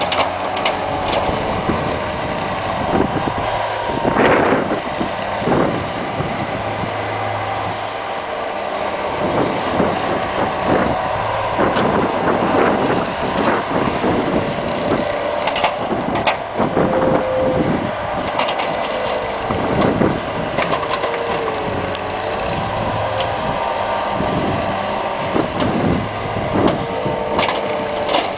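Cat 247B compact track loader working in snow: its diesel engine runs steadily while the tracked undercarriage and plow clank and knock irregularly, with squealing and the engine pitch dipping briefly under load a few times.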